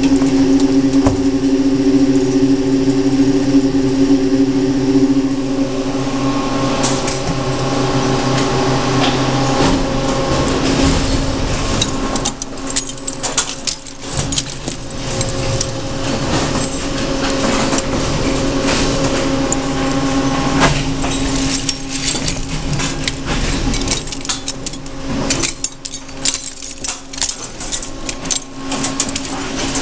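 Industrial shredder and its conveyor running with a steady mechanical hum. From about twelve seconds in, it is joined by dense, irregular metallic clattering and clinking as shredded hard-drive metal drops off the conveyor onto the pile in a cardboard bin.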